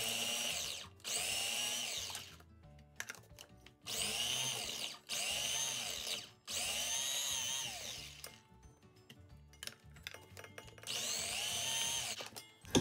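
Electric mini food chopper pulsed in short bursts to chop halved onions: the motor whines up and winds down about six times, each burst a second or so long, with short pauses between.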